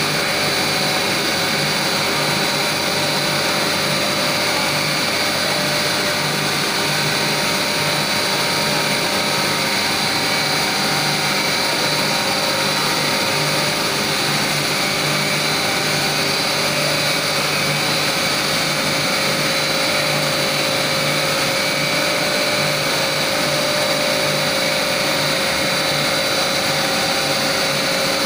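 Kabra blown film extrusion line running, a loud, steady machine whir from its motors and the blower feeding the air ring. Several constant hum tones sit within it.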